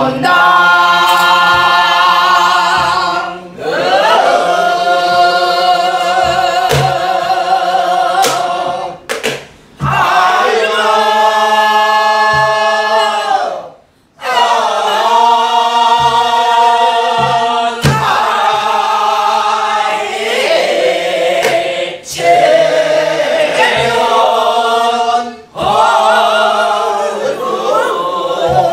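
A group singing a Korean Namdo folk song together in long phrases with a wide, shaking vibrato, pausing briefly for breath between phrases. Short low thumps, likely strokes on a buk barrel drum, fall now and then under the singing.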